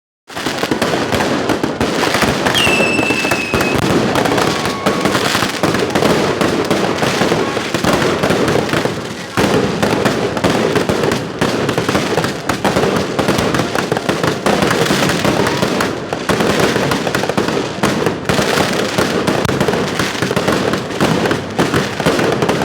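Fireworks display: a dense, continuous crackling of many bursts going off one after another, with a brief whistle about two and a half seconds in.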